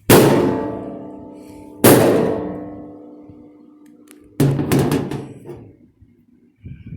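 Three sledgehammer blows on the sheet-metal cabinet of an old vending machine, about two seconds apart. Each blow rings with a metallic tone that fades away over a second or two.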